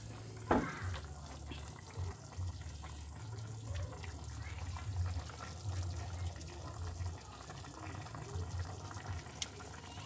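Chicken soup boiling in a wok over a wood fire, a steady bubbling over a low, uneven rumble. A single sudden knock comes about half a second in.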